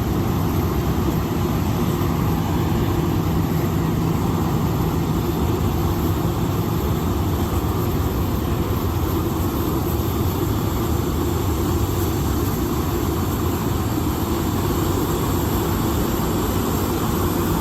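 Jet airliner engines running: a steady rush of noise with a low hum underneath.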